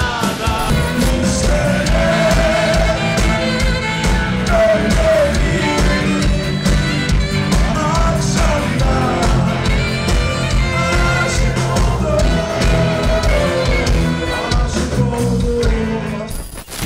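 Rock band playing with a sung vocal line over guitars and a steady drum beat; the sound dips briefly near the end.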